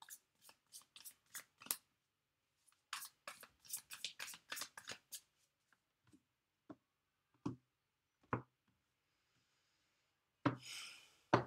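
A tarot deck being shuffled by hand: two runs of quick, crisp card slaps. Then a few single taps as cards are set down on a table, and a short sliding swish ending in a tap near the end.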